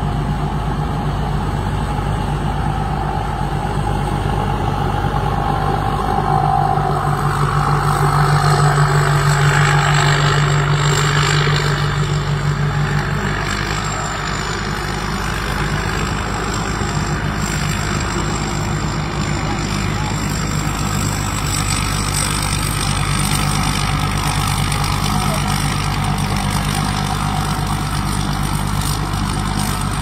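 Rice combine harvester's engine and threshing machinery running steadily while cutting rice, growing louder for several seconds about a quarter of the way in.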